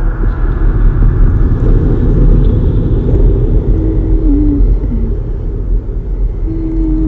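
A loud, steady low rumble, with a short pitched tone that falls away about four seconds in and another near the end.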